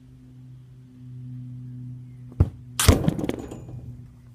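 A football striking a small backyard goal: a sharp knock, then about half a second later a hard impact on the goal and its netting, followed by a rattle that dies away over about a second.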